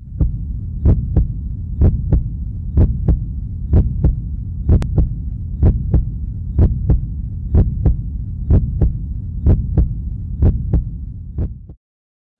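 Heartbeat sound effect: paired lub-dub thumps about once a second over a low steady hum, cutting off sharply near the end.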